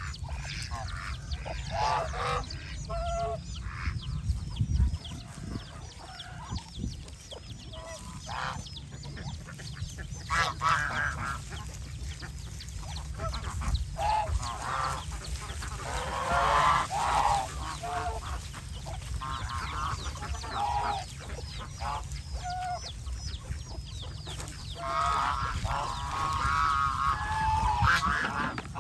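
Domestic geese honking over and over, several birds calling at once in bursts, loudest a little past the middle and again near the end.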